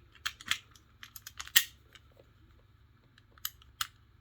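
A cut key turning in an old unbranded two-lever padlock: a run of sharp metallic clicks as the levers and bolt move, the loudest about one and a half seconds in and two more near the end. The key works the lock, though not quite as smoothly as it does the other one.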